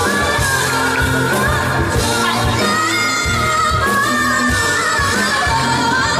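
Spinto soprano singing live into a microphone, holding high notes over a pop band with a steady bass line and drums.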